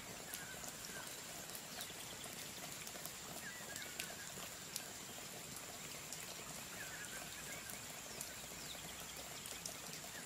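Wooden spoon pushing dry granulated sugar around a nonstick frying pan: a steady grainy hiss with many small scattered clicks and scrapes.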